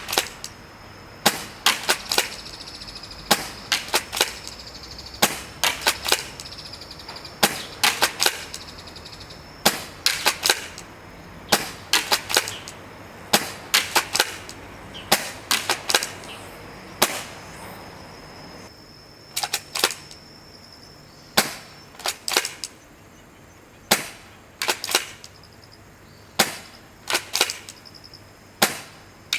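Tokyo Marui M3 Shorty spring-powered airsoft pump shotgun being fired over and over, with the pump worked between shots. The sharp clacks come in quick groups of two or three, about every one and a half to two seconds.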